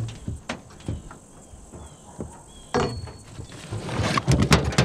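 Gear being rummaged through in a pickup's aluminium truck-bed toolbox: irregular knocks, clunks and rattles as items are shifted around by hand, busiest near the end.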